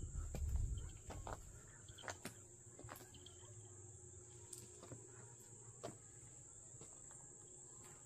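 Faint, steady high-pitched drone of an insect chorus, with footsteps crunching on gravel and a brief low rumble in the first second or so, then a few scattered crunches.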